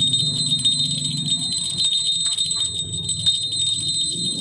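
A solid-brass jingle bell on a pet collar is being shaken. Its loose ball rattles rapidly inside the shell, giving a continuous high-pitched ringing jingle.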